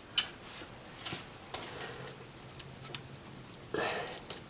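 Light, scattered clicks and taps of small metal parts as wire terminals and small nuts are fitted back onto a car's ignition coil, with one short soft rustle near the end.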